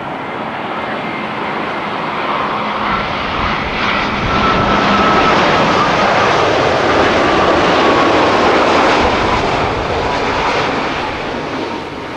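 Boeing 787-8's twin GEnx-1B turbofan engines at approach power as the airliner passes low overhead on final approach, gear down. The jet rush swells to its loudest midway and eases near the end, with a faint whine sliding slowly down in pitch as it goes by.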